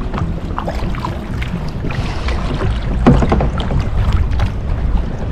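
Kayak paddles dipping and splashing in sea water in a few irregular strokes, over a heavy low rumble of wind on the microphone.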